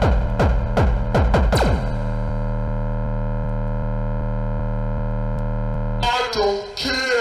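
Hardcore gabber track playing in a DJ mix: booming kick drums that drop in pitch, a few per second, then the beat stops about two seconds in, leaving a held synth drone. About six seconds in, a warbling, gliding sample cuts in.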